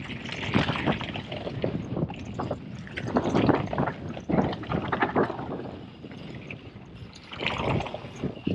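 Orbea Rallon enduro mountain bike descending a rough gravel and rock trail: tyres rolling and crunching, with irregular knocks and rattles from the bike over bumps that grow louder about three seconds in and again near the end.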